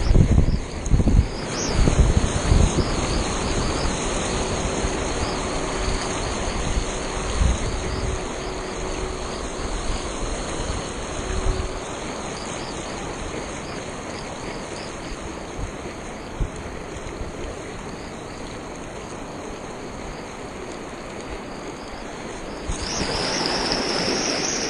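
Rushing, washing water around a stand-up paddleboard moving through small breaking surf, with wind gusting on the microphone, heaviest in the first few seconds. Near the end a louder rush of splashing water comes in as the paddle throws spray.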